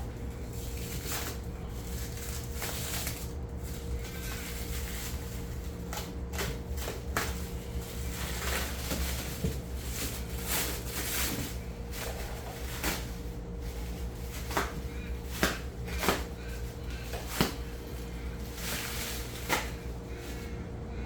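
Scattered knocks, clicks and scrapes from unpacking a boxed metal-melting furnace and its packaging, a few sharper knocks in the second half, over a steady background hum.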